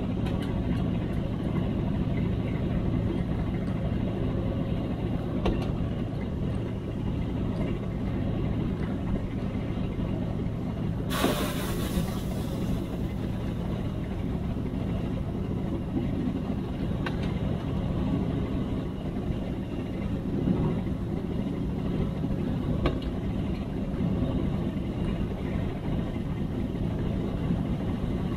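Narrow-gauge LXD2 diesel locomotive running under way, with a steady engine drone and a few faint clicks. About eleven seconds in there is a short hiss of air lasting a second or two.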